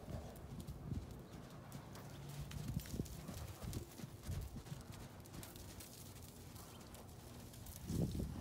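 Gypsy Vanner horse's hooves thudding dully on arena sand as he trots loose, with a louder flurry of hoofbeats near the end as he turns.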